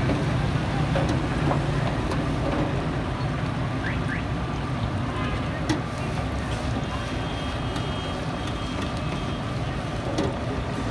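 French fries deep-frying in a wire basket in hot oil, a steady sizzle, with a few light metal clicks as the basket is handled. A low street-traffic rumble and background voices run underneath.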